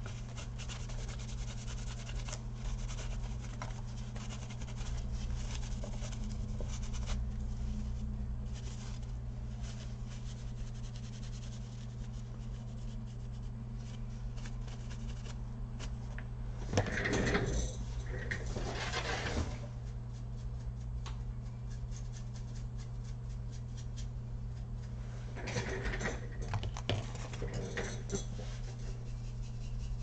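Rubbing and scratching of the laptop's CPU cooler being wiped clean of old thermal paste, with louder scrubbing strokes a little past the middle and again near the end, over a steady low hum.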